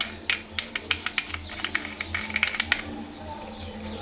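A quick, irregular run of sharp clicks or taps of hard objects, stopping a little before three seconds in, over a low steady hum.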